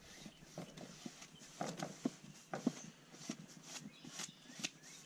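Small wooden slabs being handled: light, irregular knocks and clicks of wood on wood or a bench, with brief brushing scuffs between them.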